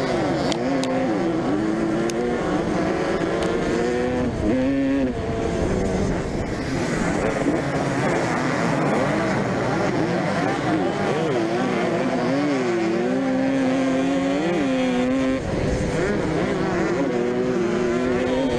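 Two-stroke motocross bike engines racing, revving up and down over and over as the riders work the throttle and shift gears.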